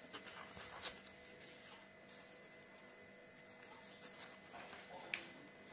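Faint handling of paper cutouts on a card chart: a couple of soft clicks, about a second in and near the end, over a faint steady hum.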